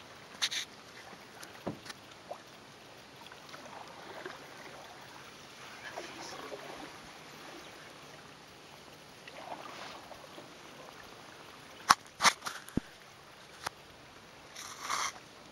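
Canoe paddle strokes in calm river water: soft swishes and splashes every few seconds, a few sharp knocks about twelve seconds in, and a louder splash near the end.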